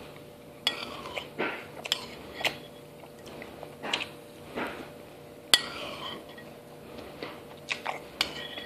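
A metal spoon clinking against a cereal bowl, with crunchy chewing of frosted mini-wheats cereal between the clinks. The loudest, ringing clink comes just past halfway.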